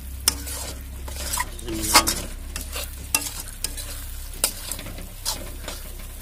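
A spatula scrapes and stirs thick masala paste around an aluminium kadhai in irregular strokes, the sharpest about two seconds in, while the paste sizzles on the flame. A steady low hum runs underneath.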